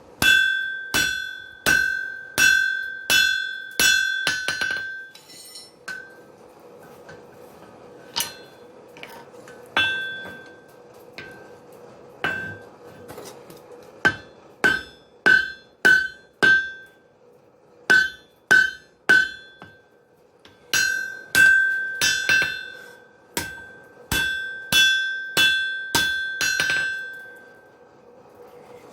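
Hammer striking hot wrought iron on an anvil while rough forging an axe body, each blow ringing. The blows come in runs of several strikes, about two a second, broken by short pauses and a few single blows.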